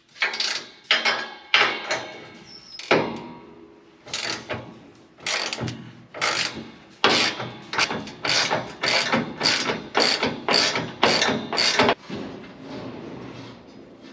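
Hand ratchet wrench working in repeated clicking strokes, about two a second through the middle of the stretch. It is loosening the bolts that hold the bushings in a combine's concaves.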